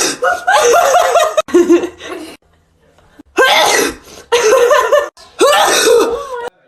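A person sneezing loudly again and again, voiced sneezes in a run of three, a pause of about a second, then three more.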